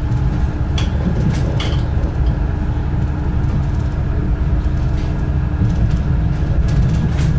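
Diesel railcar running along the track, heard from inside the train: a steady low engine and wheel rumble with a faint steady hum. There are two sharp clacks about one and one and a half seconds in.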